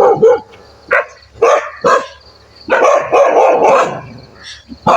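A dog barking: a few short barks, then longer runs of barking about three seconds in.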